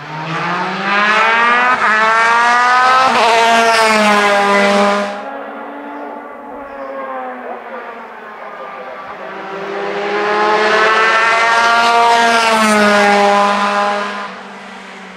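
Wolf GB 08 sports prototype racing uphill at full throttle, its high-revving engine climbing in pitch with a gear change, loud as it passes close. It fades, then a second loud full-throttle pass follows about ten seconds in.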